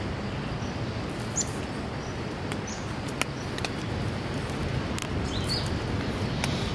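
Outdoor night ambience: a steady low rushing noise with a few short, high chirps and scattered sharp clicks.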